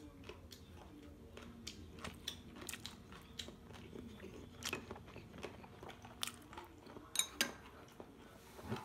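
Chewing and crunching of food up close, with scattered light clicks of chopsticks against dishes; two sharper clicks come about seven seconds in.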